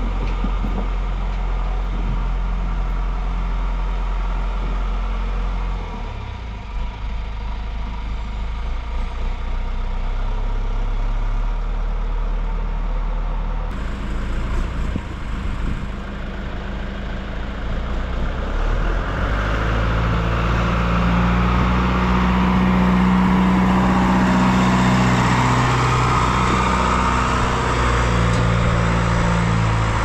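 Tractor engine running steadily, then louder and higher from about two-thirds of the way through, as it is throttled up.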